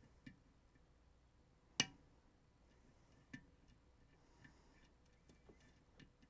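Faint, irregular clicks of a lock pick and tension wrench working the pins of a Dom RS Sigma lock, with one sharper click about two seconds in and a run of small ticks near the end.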